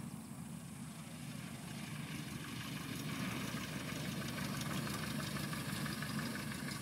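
Cessna 152's four-cylinder Lycoming engine and propeller running at low taxi power after landing, getting louder from about two seconds in as the plane rolls closer.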